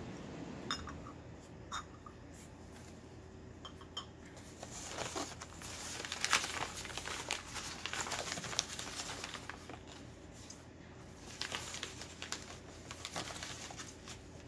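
A few light clicks in the first four seconds, then packing paper crinkling and rustling in two long stretches as wrapped china is taken out of a box and unwrapped.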